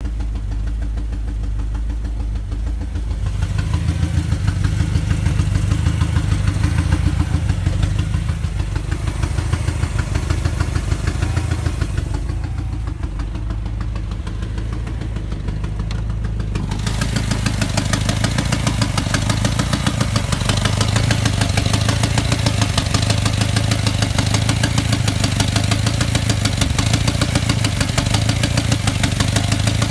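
BMW M5 F10's twin-turbo V8 idling with a fast, even knocking tick that comes through sharper about halfway through. The owner takes it for rod knock or a turbo leak.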